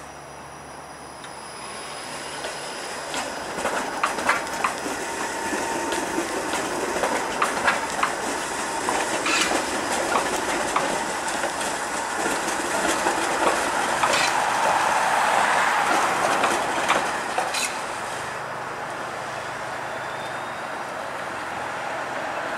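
Toronto TTC Flexity Outlook streetcar rolling past, its steel wheels clacking on the track with many sharp clicks. It grows steadily louder as it comes by, then drops away to steady road traffic noise near the end.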